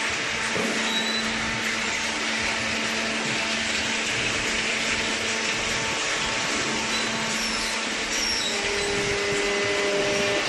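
Kraft paper baler machine running: a steady mechanical noise with a constant low hum, and a second, higher steady tone joining about eight and a half seconds in as it gets slightly louder.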